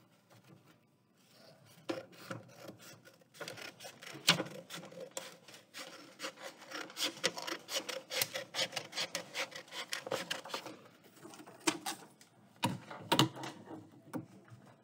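A sheet of paper being handled, with rustling and many quick, crisp crackles. It starts about two seconds in and is busiest in the middle.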